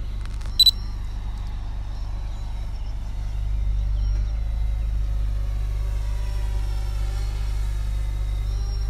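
A quick double electronic camera-shutter sound from the drone app as a still photo is taken, about half a second in, over a steady low rumble.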